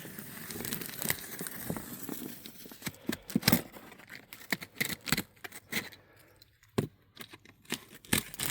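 A cardboard box being torn open: a continuous ripping over the first three seconds, then a run of sharp crinkles, taps and clicks as the packaging and contents are handled.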